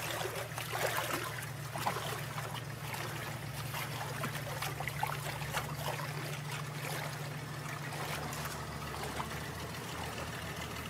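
Wet, splashing squelches of feet treading sludgy black sand in water, over the steady low hum of a motor running throughout.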